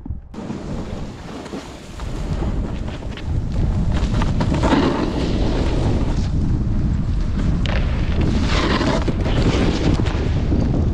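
Wind rushing over an action camera's microphone as a snowboard runs downhill, with the board scraping across icy snow. The rush grows louder about two seconds in and swells twice more.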